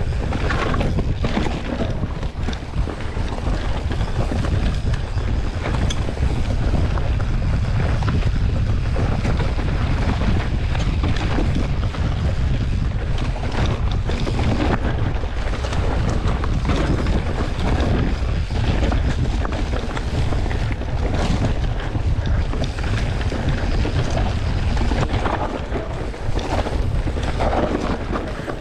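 Wind buffeting the microphone of a camera riding along on a mountain bike, with a steady deep rumble and frequent short rattles and knocks from the trail.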